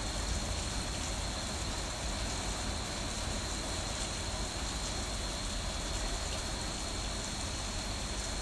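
Heavy rain falling steadily during a thunderstorm, an even hiss with a constant low rumble beneath it.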